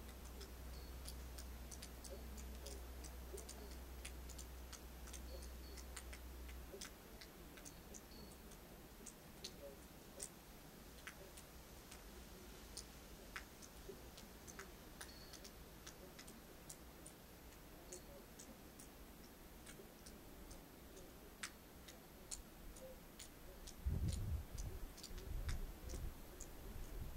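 Faint, scattered, irregular small ticks and clicks, a couple each second, over a low hum that stops about seven seconds in. Near the end, gusts of wind start buffeting the microphone with a low rumble.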